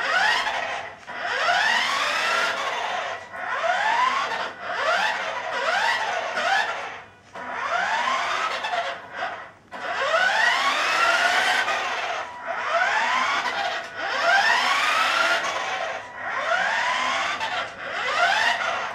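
Small electric drive motor and gears of a toy RC car speeding up in short bursts, each a whine rising in pitch, with brief pauses as the car stops and starts again.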